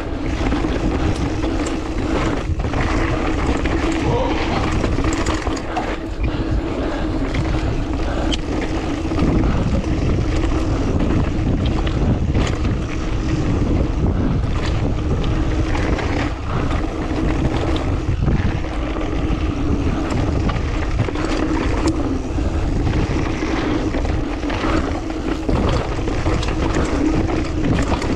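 Mountain bike descending a loose, rocky trail, heard on a GoPro Hero 9's built-in microphone: tyres rumbling over rock and dirt, the bike knocking and rattling over bumps, and wind buffeting the microphone.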